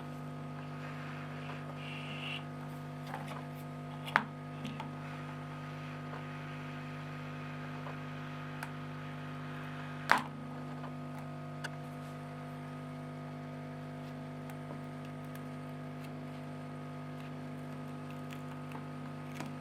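Steady electrical hum with a few faint ticks and two sharp clicks, about four seconds and about ten seconds in, from a plastic Canon ink cartridge being handled and taken apart.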